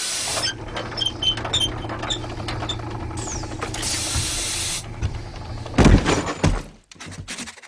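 Factory machinery sound effects: a steady low mechanical hum with small metallic clinks and a burst of hissing about four seconds in, then two heavy thuds near six seconds followed by rattling that dies away.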